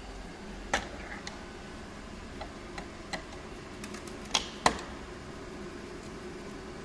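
Scattered sharp clicks and knocks of a car's interior trim piece being worked loose by hand, about seven in all, the two loudest close together about four and a half seconds in.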